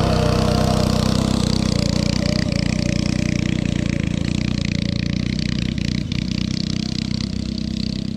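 Small engine running steadily at one constant speed, close and loud, easing off near the end.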